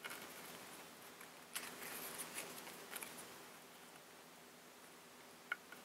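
Construction paper rustling and crinkling as hands crease a folded paper circle into narrow fan folds, with a few sharper crackles in the first three seconds and a single short click near the end.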